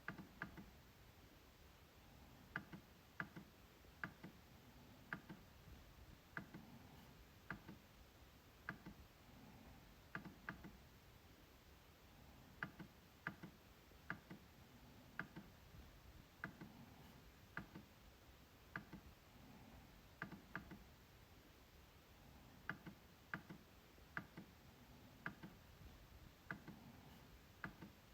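MacBook trackpad being clicked: sharp, light clicks at an uneven pace, often in quick pairs, about one to two a second.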